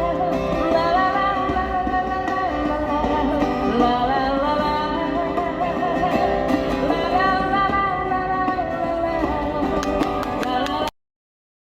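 Background music: a song with a singing voice over guitar, cutting off abruptly near the end.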